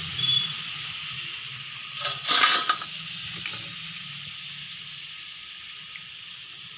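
Omavalli pakoras deep-frying in hot oil in a kadai: a steady sizzle that slowly fades, with a brief louder burst about two seconds in.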